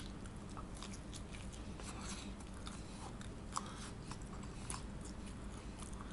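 A person biting into a slice of pizza, then chewing with the mouth closed: faint, scattered small clicks and wet mouth noises over a low hum. The sharpest click comes with the bite at the very start.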